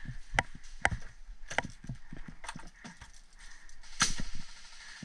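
Airsoft gunfire: about six sharp, irregularly spaced cracks, the loudest about four seconds in.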